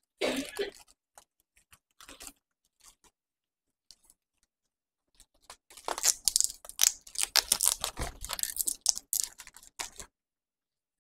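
Wrapping paper crinkling and rustling as it is handled and wrapped around the stem of a bouquet. There are a few faint scattered clicks at first, then a dense run of crackling from about six seconds in until near the end.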